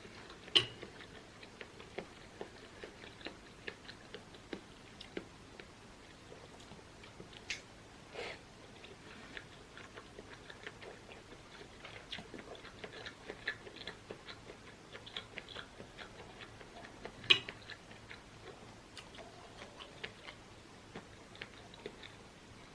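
Close-miked mouth sounds of a person chewing a fish-roe-filled hotpot ball: soft wet smacks and small clicks at an irregular pace. Two sharper clicks stand out, one about half a second in and one about 17 seconds in.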